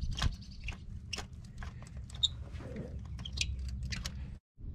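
Irregular metallic clicking of a socket ratchet loosening a starter mounting nut, with scattered ticks and knocks of the socket and extension, over a low steady rumble. The sound cuts off abruptly near the end.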